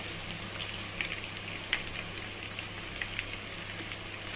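Battered basa fish pieces deep-frying in hot oil in a pan: a steady sizzle with scattered small pops and crackles.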